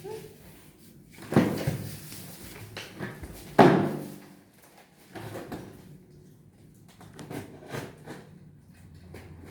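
Two heavy thumps, about a second and a half in and again near three and a half seconds, the second the louder, followed by a run of lighter knocks and clicks.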